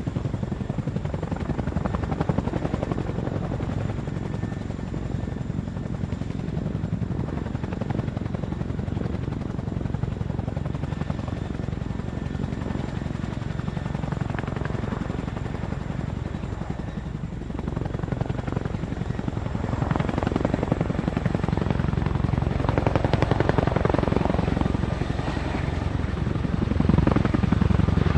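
A steady engine drone with a fine, fast pulsing in it, louder over the last several seconds.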